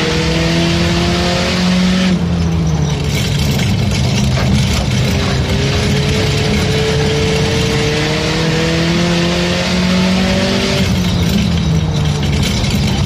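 Race car engine running hard at speed, its pitch climbing slowly as the car accelerates. The pitch falls as the throttle comes off about two seconds in, climbs again for several seconds, and falls once more near the end, over a steady roar of the car at speed.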